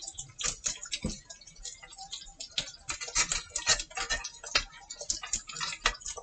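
Wooden chopsticks clicking and scraping against an open metal sardine tin as sardines are picked out: irregular sharp clicks, a few a second.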